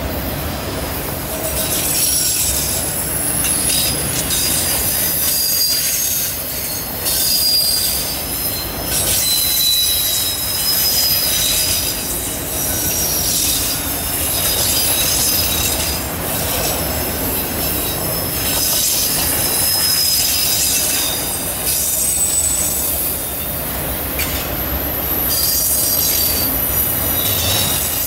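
Freight train of autorack cars rolling past on a curve: the wheel flanges squeal against the rail in several high-pitched tones that come and go and shift in pitch, over a steady rumble of the wheels on the track.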